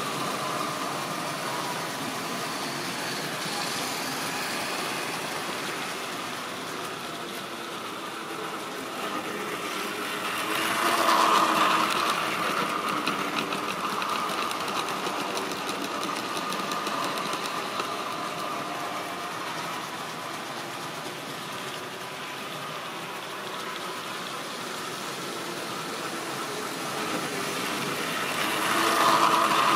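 Model railway train running on the layout: the small electric motor of the locomotive hums and the wheels of its tank wagons run over the track. The sound swells twice, about eleven seconds in and again near the end, as the train passes close by.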